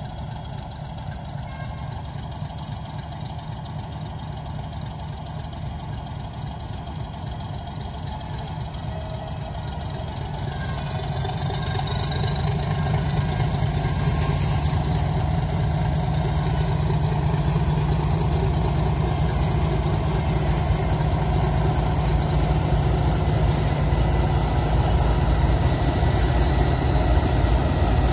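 Diesel locomotive engine running as the locomotive approaches hauling passenger coaches. It grows steadily louder from about ten seconds in as the locomotive draws near and comes alongside.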